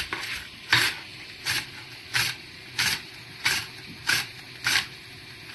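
A fresh cucumber being julienned on a handheld plastic julienne grater: a steady run of short rasping scrapes, about seven strokes at roughly one every two-thirds of a second, each pass cutting thin strips.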